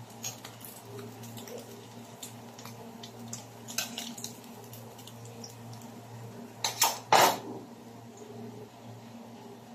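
Stainless steel tongs clinking against a ceramic wok as a fried fish fritter is lifted out of the oil: a few light clicks, then two loud clacks about seven seconds in, over a steady low hum.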